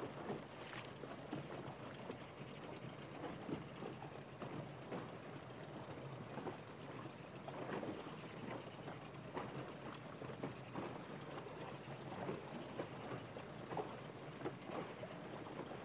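Water sloshing and slapping around an inflatable boat's hull: an irregular, noisy clatter of small splashes with no steady tone.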